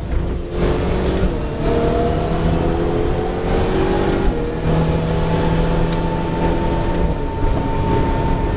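Ferrari 488 Challenge car's twin-turbo V8 running under moderate acceleration, its note climbing slowly and dropping with upshifts about a second in, around four seconds in and around seven seconds in.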